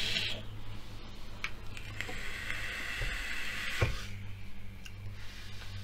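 A long drag on a vape: a steady airy hiss of air drawn through the atomiser, starting about two seconds in and lasting nearly two seconds, cut off by a sharp click. A low steady hum runs underneath.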